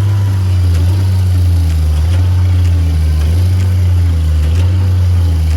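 An engine running steadily at constant speed, a loud low drone.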